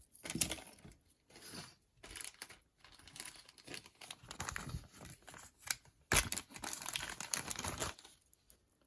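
Packaging crinkling and rustling in the hands in irregular bursts as a piece of jewelry is unwrapped, loudest about six seconds in.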